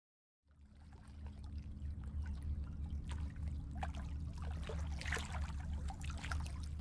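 Water trickling and splashing over a low steady hum, fading in about half a second in.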